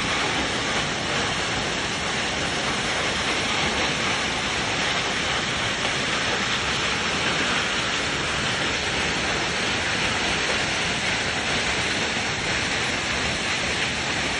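Fitzroy Falls in full flow after heavy rain: a steady, unbroken roar of falling water.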